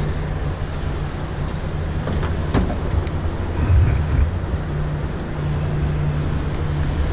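Steady low motor hum from the fishing boat, with wind noise over it. A few light clicks and a louder low thump about four seconds in, as a small flathead catfish is lifted aboard and handled.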